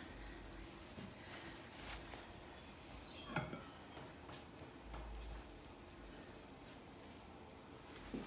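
Faint knocks and scrapes of a terracotta clay roaster's lid being handled and lifted off with oven mitts, over a faint sizzle of hot juices in the freshly roasted dish.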